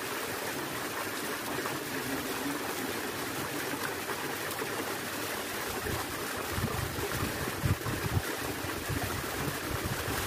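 Steady rushing of running water. From about six seconds in, low irregular bumps on the microphone sound over it.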